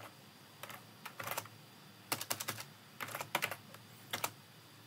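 Computer keyboard typing in short bursts of a few keystrokes, with brief pauses between the bursts.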